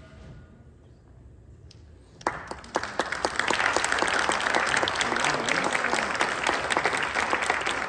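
Audience applause: near quiet for about two seconds, then clapping breaks out and quickly swells to steady applause.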